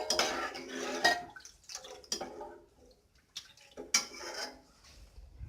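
Whisked curd being poured into a pan of fried spices and stirred, a spoon clinking and scraping against the pan a few times.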